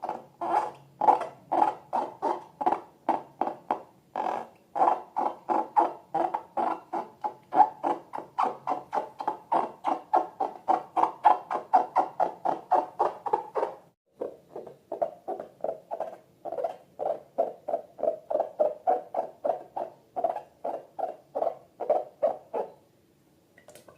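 Slime being squeezed and squished by hand in a steady rhythm, about three squelches a second. There is a short break about two-thirds of the way through, and it stops near the end.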